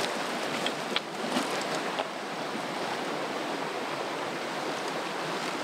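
Steady rush of running water, with a few faint clicks in the first couple of seconds.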